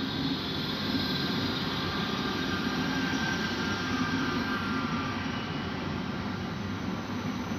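Red S-Bahn RheinNeckar electric multiple unit rolling past along the platform: a steady running noise with a low hum and faint high whining tones.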